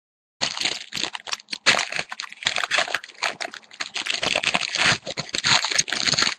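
A hockey card pack wrapper being torn open and crinkled by hand: a dense, continuous crackling with sharp snaps. It starts about half a second in.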